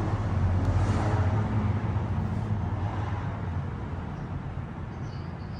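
A motor vehicle's engine running with a steady low hum that fades away over the second half.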